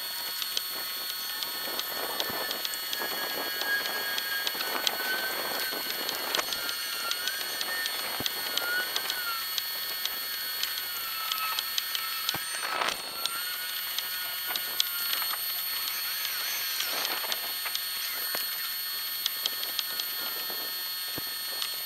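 Jackson Flex Drive E electric kayak motor running at its top setting, speed five: a thin wavering whine over a steady crackling hiss of water rushing along the hull.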